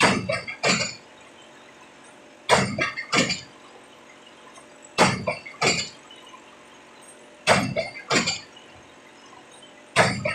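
Pile-driving hammer striking a PHC (prestressed concrete) spun pile: a loud metallic clanging blow about every two and a half seconds, each followed by a quicker, weaker knock from the rebound, five blows in all.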